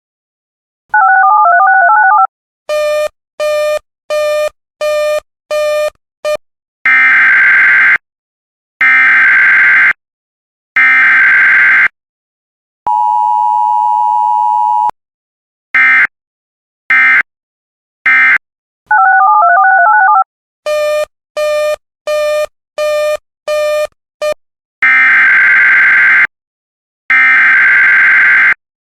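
Emergency Alert System signalling. Short electronic beeps and a warbling tone lead into three one-second bursts of SAME header data. A two-second EAS two-tone attention signal follows, then more beeps and warbling, and about 25 seconds in, another three data bursts.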